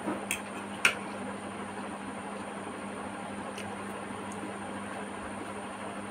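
A person eating noodles and a spring onion stalk: two sharp clicks in the first second, the second louder, then a steady hiss with a couple of faint ticks.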